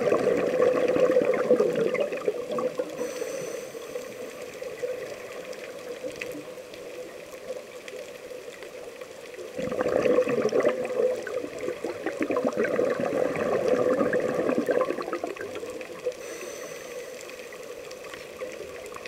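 Scuba diver's regulator heard underwater: two long exhalations of bubbling gurgles, one at the start and one from about halfway, each followed by a short high hiss of inhalation.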